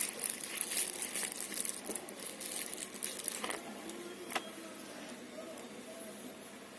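Rustling and small sharp clicks of parts and tools being handled, busy at first and dying down after about three and a half seconds, with one last click soon after.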